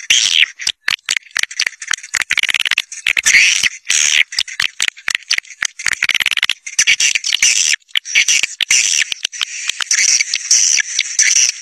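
Swiftlet caller sound: a flock of swiftlets chirping and twittering in a dense, rapid, high-pitched chatter with only brief pauses. This is the kind of call played in swiftlet houses to draw the birds in to nest.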